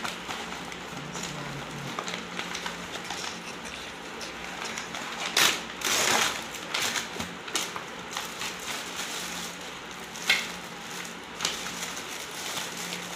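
Plastic courier bag and clear plastic wrapping crinkling and rustling as they are handled and opened, with a louder burst of tearing about five and a half seconds in and a sharp crackle near ten seconds.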